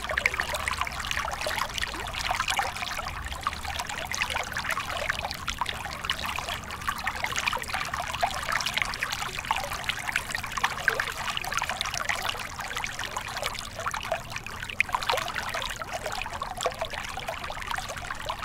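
Water trickling and splashing steadily, a dense fine crackle of small drops without let-up.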